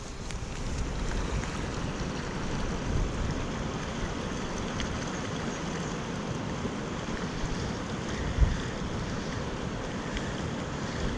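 Steady rush of a shallow, rocky stream, with wind on the microphone and a brief low bump about eight seconds in.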